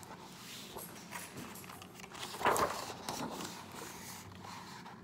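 Pages of a picture book being turned and handled: soft paper rustling and small knocks, with a louder rustle about halfway through.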